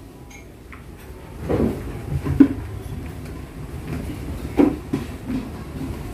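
A few irregular dull thumps over a low steady rumble, the loudest about two and a half seconds in.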